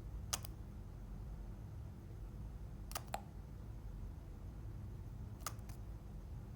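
Slime being pressed and worked by hand, giving sharp clicks, single or in quick pairs, about every two and a half seconds, over a low steady hum.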